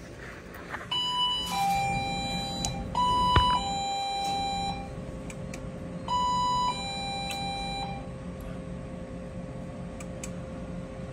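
Queen of Virginia skill-game machine playing electronic two-note chimes, a higher tone dropping to a lower one, three times, as bonus prizes are revealed and added to the win total. A steady hum runs underneath.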